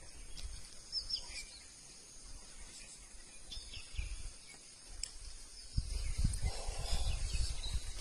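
Outdoor forest ambience with scattered short, high bird chirps. Low rumbling noise on the microphone builds from about six seconds in.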